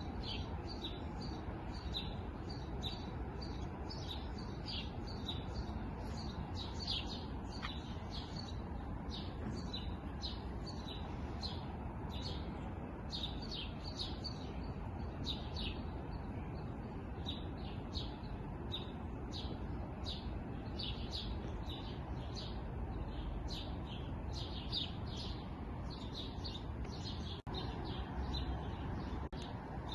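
Many small songbirds chirping, a dense chorus of short high-pitched calls that keeps going without a break, over a steady low background rumble.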